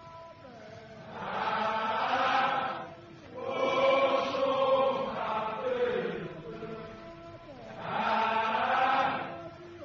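A massed chorus of Zulu warriors' voices chanting in three long swelling phrases, each a few seconds long, rising and falling away between them: a war chant sung in salute to the defenders.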